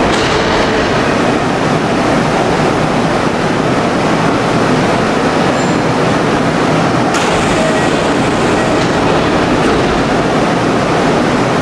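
Electric commuter train on the Hanshin Namba Line running along the platform, a loud, steady rumble and rail noise throughout.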